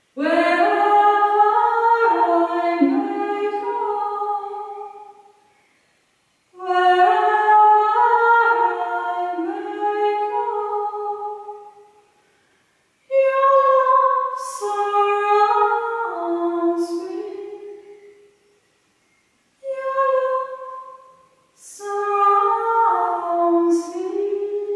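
A woman singing solo and unaccompanied, in long sustained phrases broken by short pauses for breath.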